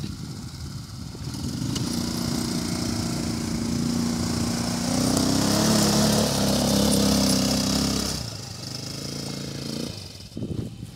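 250cc ATV quad bike engine running close by, getting louder from about two seconds in and loudest between about five and eight seconds, then dropping off sharply just after eight seconds.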